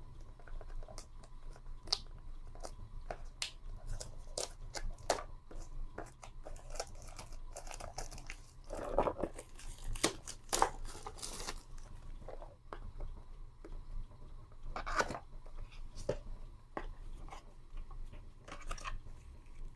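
Packaging being torn open and handled while an electric shaver is unboxed: scattered clicks, crinkles and rustles, with a longer spell of tearing about nine to eleven seconds in.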